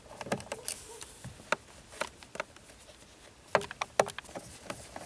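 Irregular light clicks and taps of a screwdriver turning Torx screws out of the back of a steering wheel, with two sharper knocks a little after the middle.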